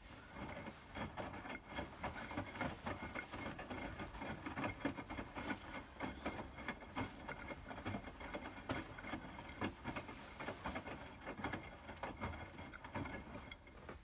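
Hotpoint WMFUG 942 front-loading washing machine drum turning, sloshing and splashing a load of towels through the wash water over a faint motor whine. It is a wash tumble during the 60° heating stage, starting suddenly and stopping near the end.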